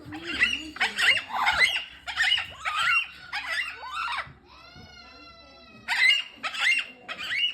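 Pet parrot squawking and chattering in a string of short, high calls, with one longer, drawn-out call about halfway through.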